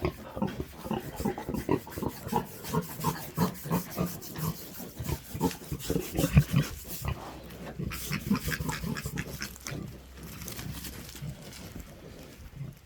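Sow grunting in a steady run of short grunts, a few a second, thinning out about ten seconds in.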